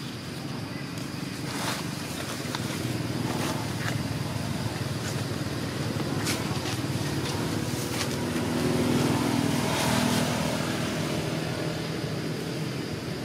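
A motor vehicle's engine running, growing louder about two-thirds of the way through and then easing off, with a few sharp clicks and a faint steady high-pitched tone above it.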